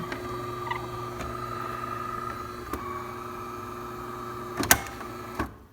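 DeLonghi Magnifica espresso machine running a test brew cycle after its seized grinder was freed: a steady motor hum, with one sharp click near the end just before the hum stops.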